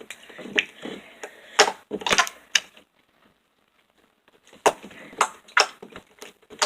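Slime being squeezed and pressed in the hands, making a series of sharp sticky clicks and pops, with a short pause in the middle.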